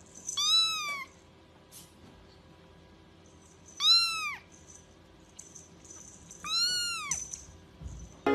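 A young kitten mewing three times, high-pitched, each mew rising and then falling in pitch, a few seconds apart.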